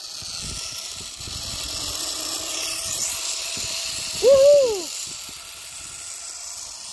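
Low wind rumble on the microphone over a steady hiss, with one short wordless rising-and-falling voice sound, like an 'ooh', about four seconds in.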